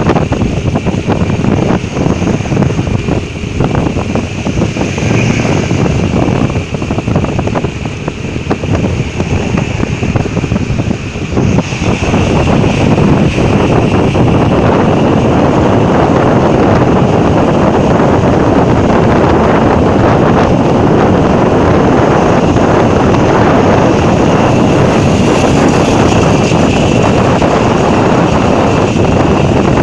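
Wind rushing over the microphone of a moving motorcycle, with the motorcycle's road noise underneath. The rush is gusty and uneven at first, then becomes louder and steady about eleven seconds in.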